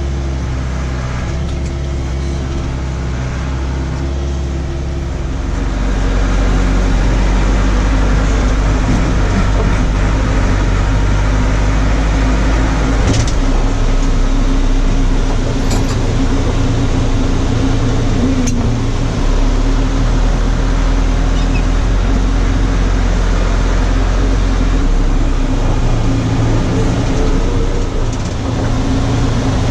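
Backhoe's diesel engine running, picking up revs about six seconds in and holding there under load, with a few short clicks and knocks.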